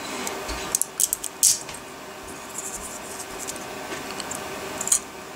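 3D-printed ABS support material crackling and snapping as fingers peel it off a printed figurine: a quick run of sharp little clicks about a second in, faint scratching after, and one more snap near the end.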